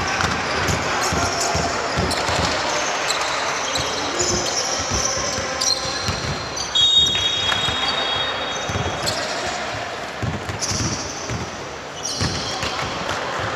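Basketball being bounced on a court during play: repeated knocks of the ball, with short high squeaks (the clearest about seven seconds in) and players' voices in the background.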